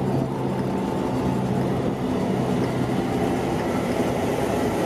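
A tractor-trailer truck driving past on a highway: a steady low diesel engine hum under even tyre and road noise.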